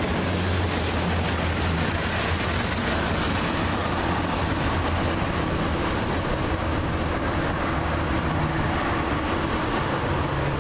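Freight train tank cars rolling past on the track: steady noise of steel wheels on rail, with a low hum underneath.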